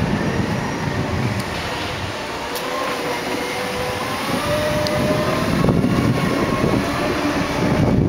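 Segway personal transporters rolling along a concrete sidewalk: a whine from the electric drive motors that slowly rises in pitch over a few seconds, over a steady rumble from the wheels.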